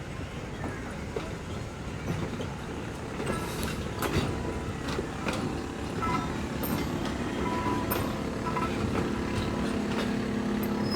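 Train moving on the rails, with scattered clicks and knocks over steady running noise. A steady low engine hum comes in about eight seconds in.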